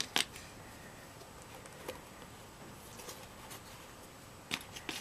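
Hands handling a leather moccasin held with plastic sewing clips: faint rustling with a few sharp plastic clicks as the clips are taken off. One click comes just after the start, one near two seconds in, and two close together near the end.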